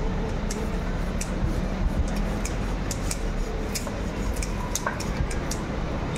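Large knife scraping scales off a whole pomfret on a wooden block: a scatter of short, sharp, irregular scrapes and ticks over a steady low background rumble.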